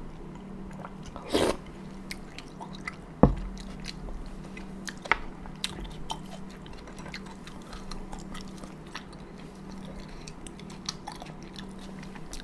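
Close-miked eating: a quick slurp of cold buckwheat noodles about a second in, then a sharp knock, then steady mouth-closed chewing with many small wet clicks.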